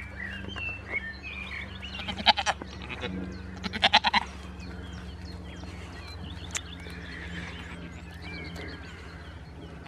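Goats bleating: two short, quavering bleats, one about two seconds in and another about four seconds in.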